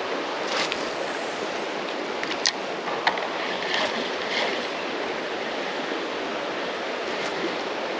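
Steady rush of flowing creek water, high after rain, with a few faint clicks in the first few seconds.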